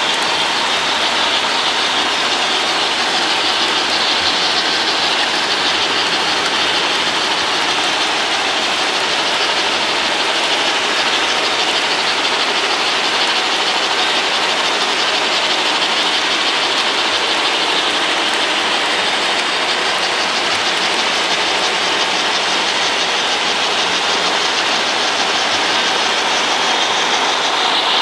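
Model cab-forward steam locomotive running along its track: a steady mechanical whir and clatter of its motor, gearing and wheels on the rails.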